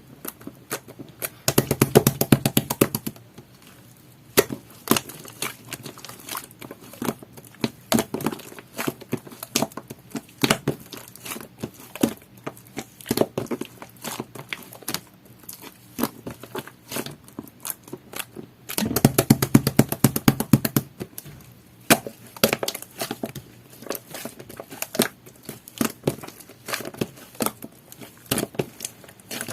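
Sticky, jelly-textured grape whipped-cream slime being squished and poked by hand: a steady string of small wet clicks and pops, with two denser, louder stretches of crackling about two seconds in and again around nineteen seconds.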